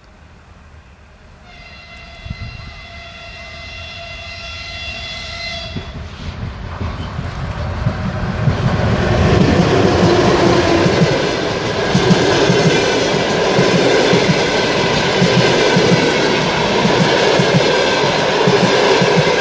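Train horn sounding one long blast of about four seconds, then the train arriving and passing close by, the loud clickety-clack of its wheels over the rail joints building up and holding steady.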